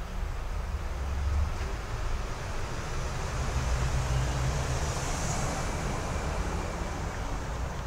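Street traffic: a steady low rumble of vehicles, swelling about halfway through as one passes close by.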